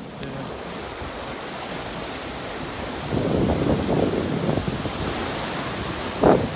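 Ocean surf breaking and washing up a sandy beach, a steady rushing with wind buffeting the microphone. It swells louder about halfway through, and there is a short loud blast near the end.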